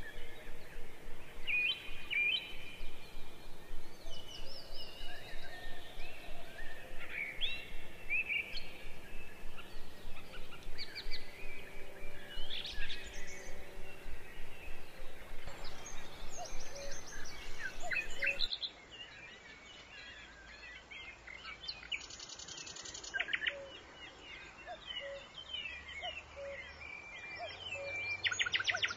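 Small birds chirping and calling in many short whistles and tweets. About two-thirds of the way through, the sound abruptly drops quieter. After that a rapid trill comes twice.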